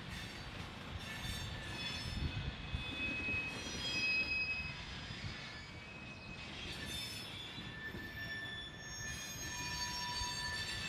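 A freight train's covered hopper cars roll past. Their steel wheels squeal against the rails in thin high tones that come and go, over a low rumble of the cars.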